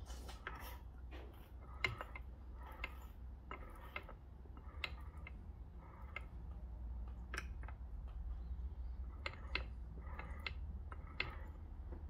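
Gears of a 1990 Kawasaki ZZR1100's opened six-speed gearbox being turned and rocked by hand, giving irregular light metallic clicks and ticks as gears and dogs knock together. The box is being checked for play, with worn gear dogs or a bent selector fork suspected.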